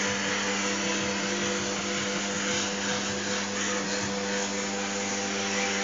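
Vacuum cleaner running steadily, a constant motor hum under the hiss of air being drawn through its hose, as the nozzle is worked over a dog's short coat.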